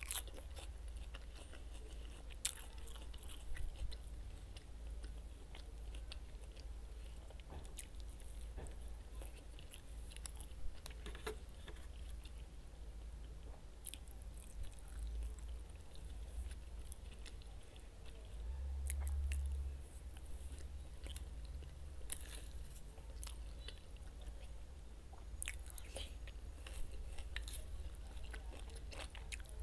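Close-miked chewing and biting of roast chicken and fresh cucumber-tomato salad, with wet mouth sounds and scattered crisp crunches and clicks. A steady low hum sits underneath.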